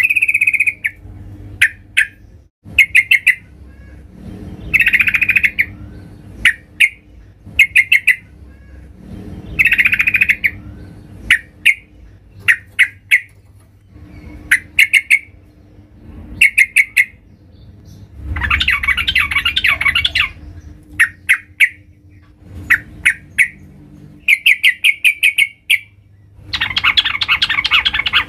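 Sooty-headed bulbul (trucukan) calling: short clusters of quick bright chirps repeated every second or two, broken twice by longer harsh chattering bursts. The calls are a female's contact calls used as a lure to draw a male into calling.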